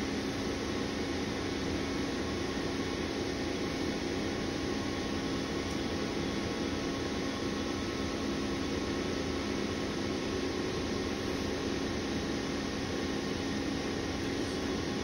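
Siemens Symbia S SPECT gantry humming steadily: an even machine drone with a few held low tones, from its drive motors and cooling fans as the detector heads move slowly.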